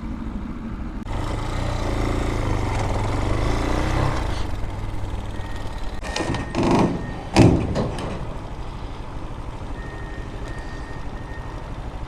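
Heavy truck engine running close by, then two loud bangs a little past the middle.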